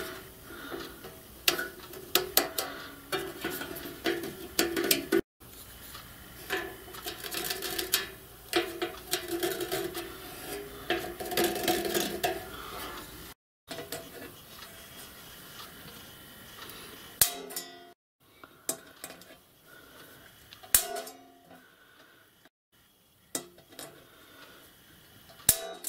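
Sheet-metal water-tender tank and its base plate being handled on a workbench: clattering, knocking and scraping of metal with some ringing. The sound breaks off at several edits, and later gives way to a few sharp clicks as the plate is marked out.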